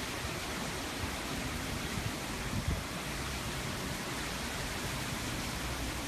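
Steady hiss and rush of hurricane wind and wind-driven heavy rain, with a short low thump about two and a half seconds in.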